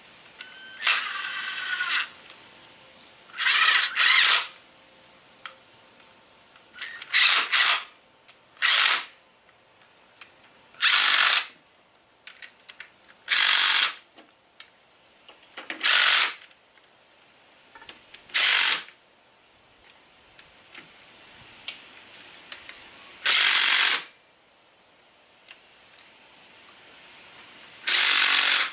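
Cordless drill/driver running bolts in, in about ten short bursts a few seconds apart, with light clicks between them. These are the KLR 650 engine cover bolts being driven in before they are torqued by hand.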